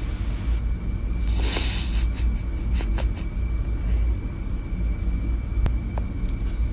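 A steady low rumble, with a brief hiss about a second and a half in and a few light clicks.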